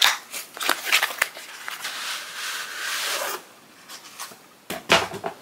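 A shipping package being torn open by hand. A few sharp crackles come first, then about two seconds of tearing and rustling, then a few quieter clicks near the end.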